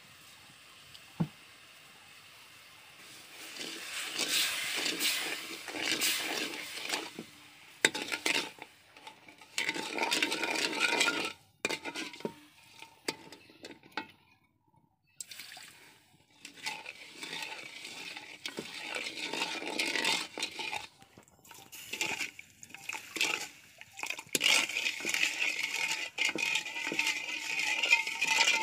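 A metal spoon stirring dark sugar syrup in a wok, scraping and clinking against the pan in irregular bursts, with two short pauses partway through.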